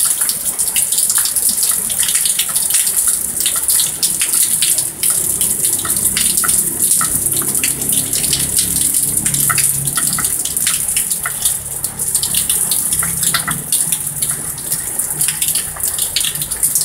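Water running steadily, with many small splashes and bubbling pops.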